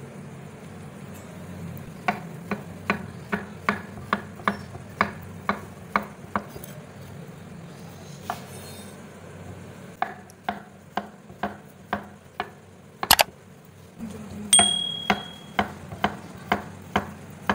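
Kitchen knife slicing a peeled banana into rounds on a wooden cutting board: a run of sharp taps as the blade meets the board, about two a second, with a pause midway. One louder knock comes about thirteen seconds in, followed by a short ringing note.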